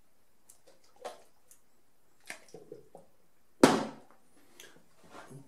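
Plastic film developing tank full of C-41 developer being tilted by hand for agitation, with small knocks and faint liquid sounds, then one loud thump about three and a half seconds in as the tank is set back down in the plastic tray.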